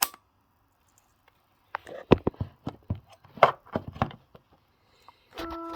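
Irregular clicks and clacks of small plastic electronic devices being handled. Near the end a steady electronic buzz made of several fixed tones starts up and keeps going.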